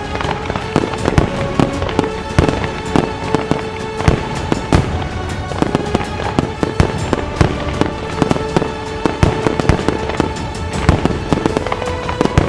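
Fireworks display: aerial shells bursting and crackling in a rapid, irregular string of bangs, with music playing underneath.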